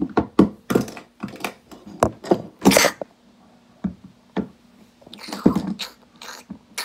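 Plastic toy animal figurines knocking and scraping against each other and a wooden surface in a mock fight: a quick run of knocks and short scuffling bursts over the first three seconds, then a few more about five and a half seconds in.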